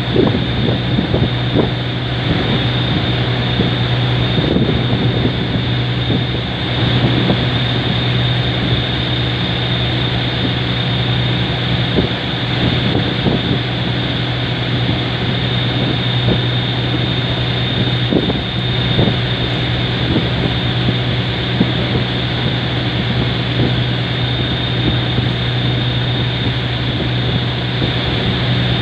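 Boat engine running steadily at cruising speed, a constant low drone, with wind buffeting the microphone.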